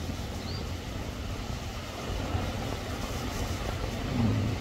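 Low, irregular rumble of wind buffeting the microphone, with a faint wash of surf behind it.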